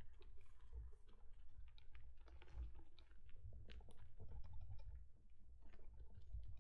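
Electric mountain bike riding over a rough track: a low rumble that swells and fades, with many light, irregular clicks and rattles.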